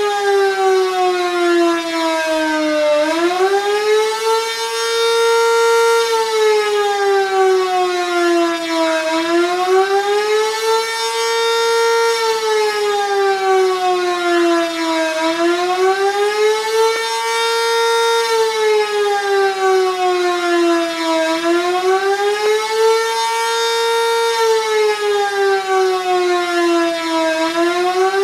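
Sentry 3V8 outdoor warning siren sounding a fast wail during a tornado siren test; it may be the attack signal. The pitch rises and falls over and over, one cycle about every six seconds, about four and a half cycles in all.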